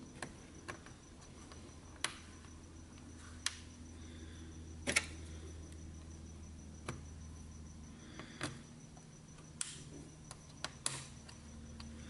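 Faint, irregular small clicks and taps, about a dozen, as tweezers and fingertips work the antenna cable connectors and wifi card inside an opened laptop.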